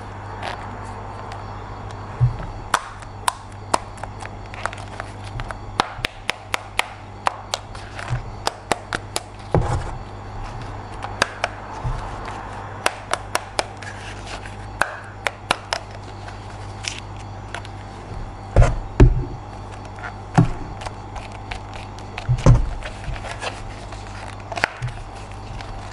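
Hands handling plastic toy parts and packaging: many irregular sharp clicks and taps, with a few heavier knocks in the last third, over a steady low hum.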